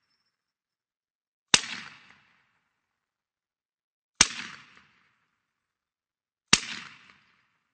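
Sten Mk II 9 mm submachine gun firing three single shots about two and a half seconds apart, each sharp crack trailing off in an echo.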